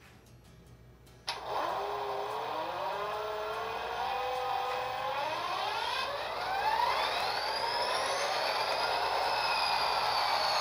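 Econami DCC sound decoder in an HO scale Athearn SD40-2 playing a simulated EMD diesel start-up through the model's small onboard speaker. The sound cuts in suddenly about a second in, then the engine winds up with a whine that rises steadily in pitch over several seconds.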